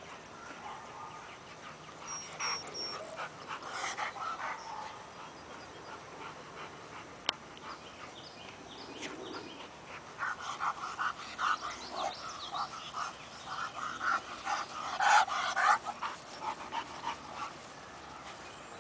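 A dog whining and yipping in quick, short cries, thickest over the second half and loudest a little before the end. A single sharp click comes earlier.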